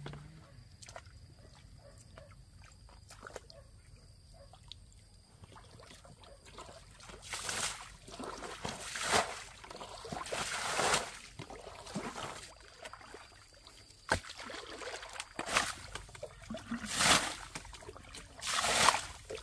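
Shallow pond water splashing and sloshing in short bursts of about a second, several times, starting about seven seconds in after a quiet stretch with faint clicks, as the water is worked by hand while catching fish in a drained pond.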